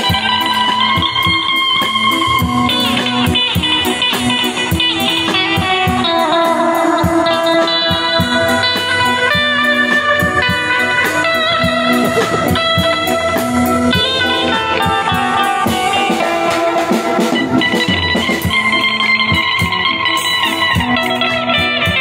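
A live band playing: an amplified electric guitar carries a melody over a steady drum kit beat.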